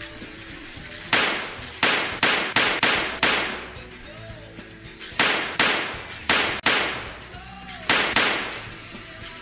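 Simulated gunshot sound effect from an airsoft gun: about a dozen sharp bangs, each with an echoing tail, fired in three quick bursts.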